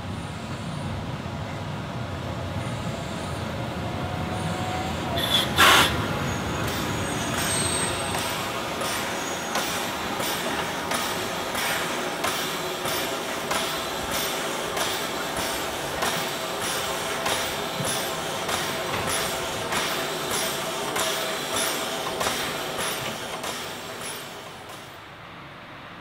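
Narrow-gauge 2-10-2 steam tank locomotive pulling away from a standstill. A loud, short burst comes about six seconds in, then the beat of its exhaust at about two chuffs a second, with steam hissing from the cylinders.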